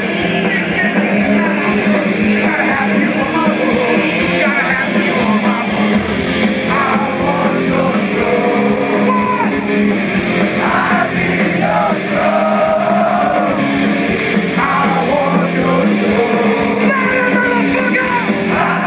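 Heavy metal band playing live and loud, with distorted guitars and a man singing and yelling over them, heard from within the crowd.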